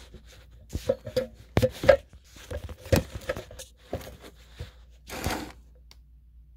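Scattered sharp clicks and knocks at an irregular pace, then a short rustle about five seconds in.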